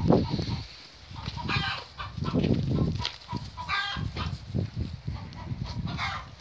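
Farmyard animal calls: three short, pulsing calls about two seconds apart, over low rumbling noise.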